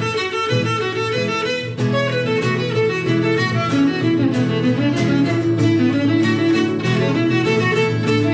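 Morin khuur (Mongolian horsehead fiddle) bowing a lively folk melody over acoustic guitar accompaniment, the plucked guitar strokes coming through more clearly from about halfway.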